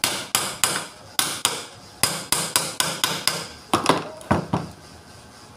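A hammer tapping on a forklift alternator's metal casing: about fifteen sharp blows in an uneven rhythm, some in quick pairs, stopping about four and a half seconds in.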